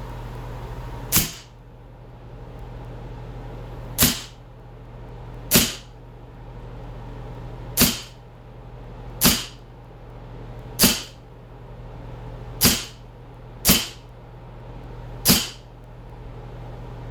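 Replica Springfield 1911 CO2 air pistol fired nine times at irregular intervals of one to two and a half seconds, each shot a sharp crack, over a steady low hum.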